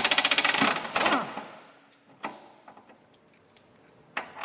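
Socket ratchet clicking rapidly for about a second as an 18 mm rear shock absorber lower nut is backed off, then a couple of light metallic knocks.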